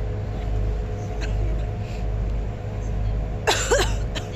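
A cruise boat's engine running with a steady low drone and hum. Near the end comes a brief, louder sound with a wavering pitch.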